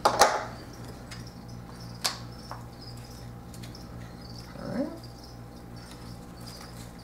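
Cardboard packaging being handled and opened on a table: a sharp knock just after the start, a couple of lighter clicks about two seconds in, and a short squeaky scrape of cardboard sliding about five seconds in, over a faint steady hum.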